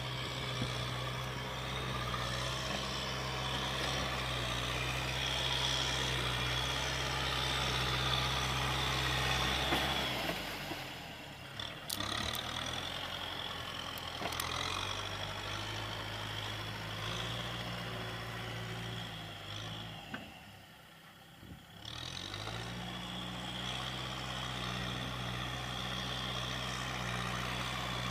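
Kubota M6040SU tractor's four-cylinder diesel engine running under load as the tractor drives through deep mud and water. The engine note eases off briefly about a third of the way in, and more deeply about two-thirds in, then picks back up.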